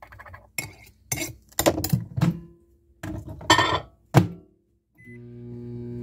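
Glass cup clinking and knocking as it is handled at a microwave, with a louder knock about four seconds in. About a second later a short keypad beep sounds and the microwave starts up with a steady hum, heating lure plastic.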